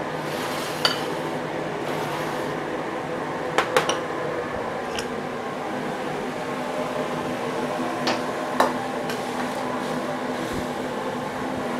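Gas wok range burners running with a steady rush. Sharp metal clinks of a ladle against woks and pans come once about a second in, in a quick cluster of three around four seconds, and twice more around eight seconds, the last of these the loudest.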